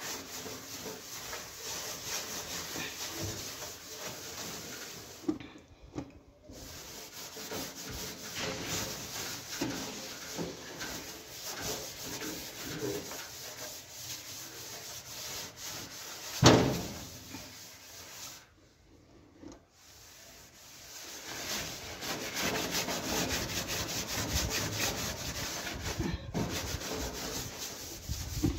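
Bombril steel-wool pad scrubbing the greasy, foam-covered metal floor of an oven: a continuous scouring scrub stroke after stroke, breaking off twice briefly. One sharp knock about halfway through is the loudest sound.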